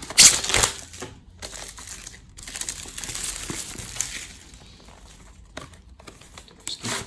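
Clear plastic shrink wrap crinkling and crackling as it is torn and peeled off a cardboard product box by hand. It is loudest in the first second, stays busy for about four seconds, then turns softer and sporadic.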